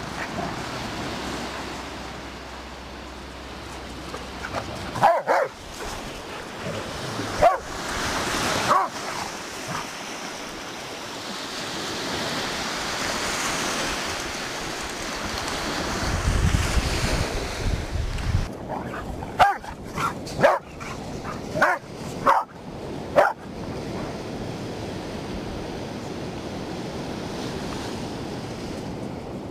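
Dogs barking at play in short, sharp barks: a few around five to nine seconds in, then a quick series of about six between nineteen and twenty-three seconds. Steady surf washes on the shore underneath, with wind on the microphone.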